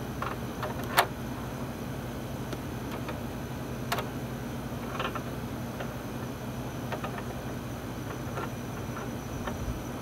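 Sharp metal clicks and taps of pliers working the nut fittings of braided flexible water-heater hoses, the loudest about a second in and others near four and five seconds, over a steady low hum.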